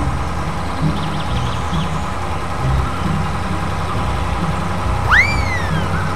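Heavy engine idling with a steady, uneven low rumble, matching the toy loader pushing sand. About five seconds in, a single whistle-like tone sweeps quickly up and then slowly down.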